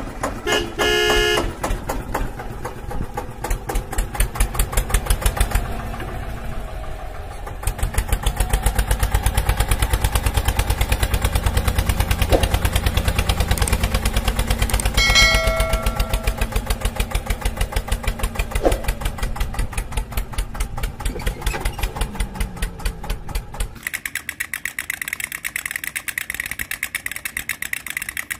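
Tractor engine chugging with an even beat, with two short horn toots, one about a second in and one about fifteen seconds in. About four seconds before the end the engine gives way to a lighter, higher-pitched rhythmic rattle.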